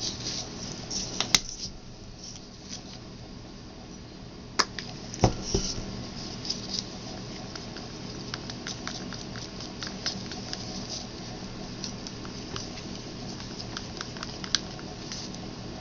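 Thick acrylic pour paint being stirred in a small cup to thin it, the stirrer clicking and scraping against the cup in quick irregular ticks, with a few louder knocks in the first several seconds.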